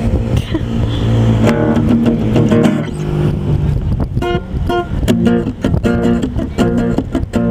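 Guitar music, with strummed chords in a steady rhythm coming clearly to the front about four seconds in, over a low steady rumble in the first few seconds.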